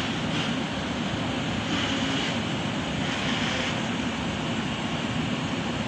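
Steady rushing of flowing canal water, an even noise with a low rumble and no separate events.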